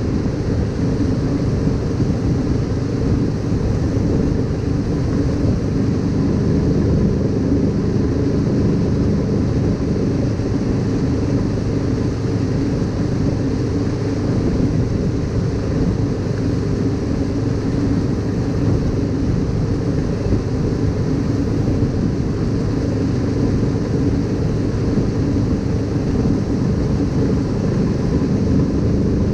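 Boat engine running steadily at an even pitch, with no change in speed.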